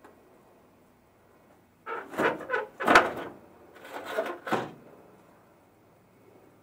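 Steel rear fender of a 1941 Ford pickup being shifted and pulled away from the bed side, scraping and clunking against the body in two bursts, with a sharp knock about three seconds in.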